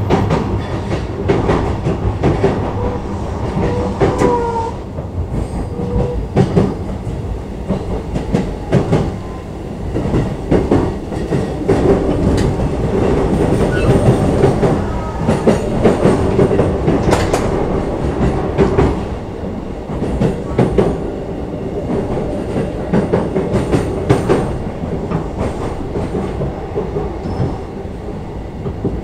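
Cabin sound of a JR East E233-5000 series electric train running between stations: a steady rumble with repeated clacks of the wheels over rail joints, and a brief whine about four seconds in.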